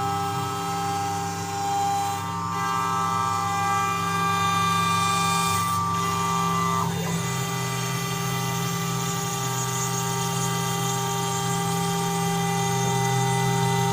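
QUICK K6100A CNC router running on a test, a steady machine whine of several constant tones over a low hum. A group of higher tones stops about halfway through while the rest keeps running.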